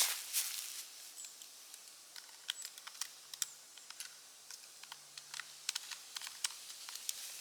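Irregular small clicks and ticks, many in quick succession and unevenly spaced, the sharpest at the very start, over a faint low steady hum.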